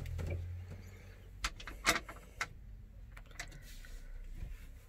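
Several short, light knocks and clicks, the loudest about two seconds in, after a low rumble at the start.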